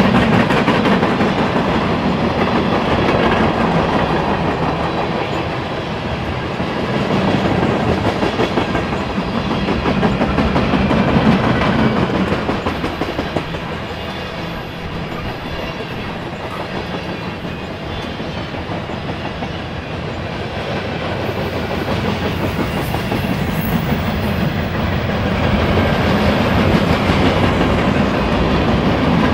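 Railroad cars of a passing train rolling by, wheels clicking over the rail joints in a steady rhythm, the sound swelling and easing as the cars go past.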